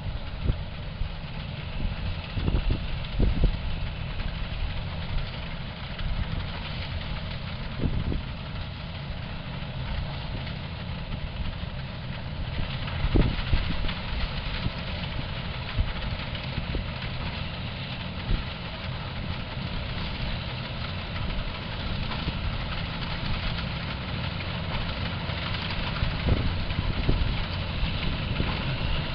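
Massey Ferguson 187 combine harvester running steadily as it cuts barley, a continuous machine drone that grows a little louder as it comes nearer, with a few short low thumps.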